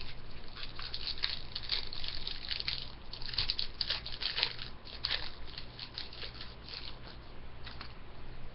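Hockey trading cards and their foil pack wrappers being handled: a run of quick crinkling and rustling as the cards are slid and flipped, busiest in the middle.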